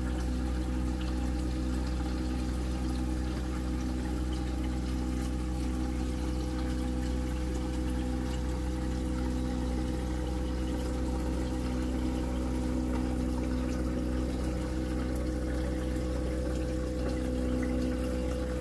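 Aquarium water pump humming steadily, with water flowing through the tank's PVC return pipe; one tone in the hum wavers on and off.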